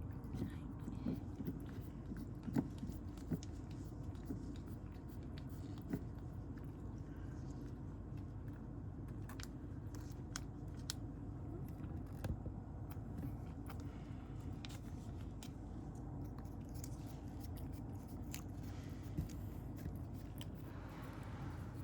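Cat eating dry kibble: irregular small crunches and clicks over a steady low hum.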